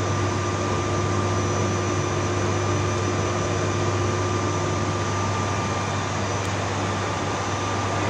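Steady machine hum and whir with a low drone and a faint constant whine, unchanging throughout.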